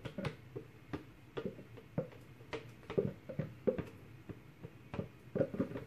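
Irregular light taps and clicks, a couple a second, from plastic soap-making containers and utensils being handled while soap batter is poured into a mold.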